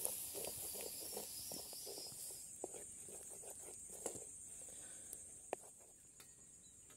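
Wooden spoon stirring and scraping a thick tomato sauce in a blackened iron pan: a soft run of short strokes for the first few seconds, then a few scattered clicks.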